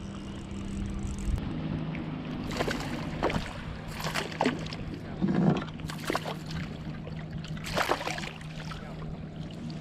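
Water splashing and sloshing against a kayak's hull in several short splashes, over a steady low hum.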